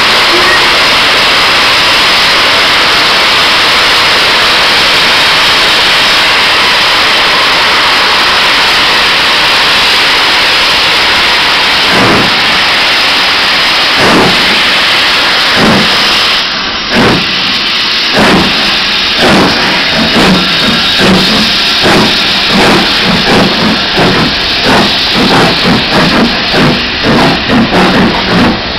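Two steam locomotives, a BR Standard 'Britannia' 4-6-2 and an LMS Stanier 8F 2-8-0, starting a train. First comes a loud, steady hiss of steam. From about twelve seconds in, heavy exhaust beats begin, slow at first and quickening to about two or three a second as they get under way.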